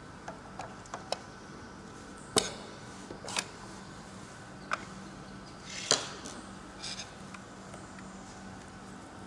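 Small clicks and knocks of a Danfoss KP15 pressure switch's cover and screws being handled and lifted off with a screwdriver: light ticks, then two sharper knocks about two and a half and six seconds in. A faint steady hum sits underneath.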